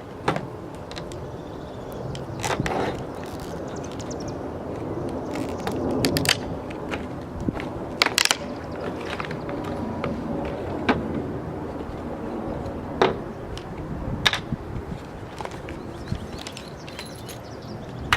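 RAM motorcycle phone mount parts and packaging being handled: irregular sharp clicks and knocks over rustling, with about half a dozen louder snaps spread through.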